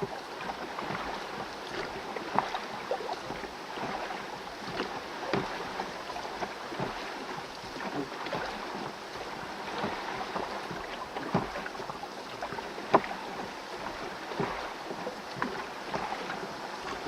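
Rowboat being rowed: oars dipping and water splashing and lapping against the hull over a steady wash of water, with sharp irregular splashes or knocks, two of them louder than the rest.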